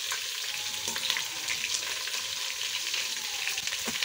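Chicken pieces frying in hot oil: a steady sizzle with scattered small pops and crackles.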